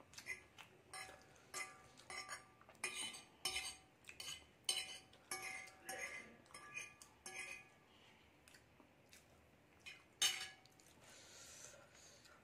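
Metal fork scraping and clinking against a glass plate while twirling noodles: a quick run of short, ringing clinks for about seven seconds, then a lull and one louder clink near the end.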